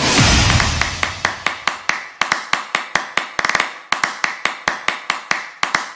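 A loud hit fading over the first second, then a rapid, even run of sharp clicking taps, about five a second, slowly dying away: the percussion tail of the intro music.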